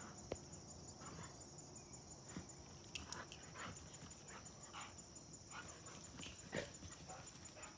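Two dogs play-fighting, giving short whines and yelps every second or so, faint at a distance.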